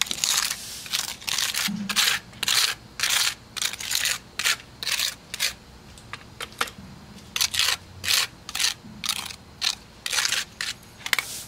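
Metal putty knife scraping back and forth over rough asphalt, spreading and flattening wet crack filler into a driveway crack: repeated short scrapes, a few a second, with a brief pause about halfway through.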